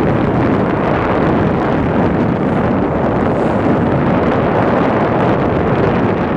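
Loud, steady wind buffeting the microphone on the open deck of a moving harbour ferry.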